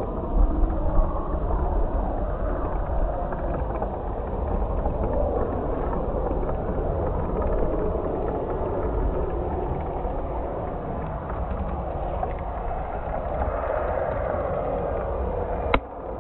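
Twin Kingtech K210 gas turbines of a giant-scale RC jet running at approach throttle, heard as a steady jet rush with no clear whine, with wind buffeting the microphone. A brief sharp click comes near the end.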